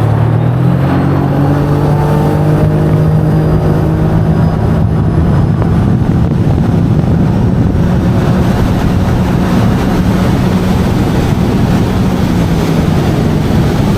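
Jet ski engine running under way, its pitch rising in the first couple of seconds as it speeds up and then holding steady, over a constant rush of noise.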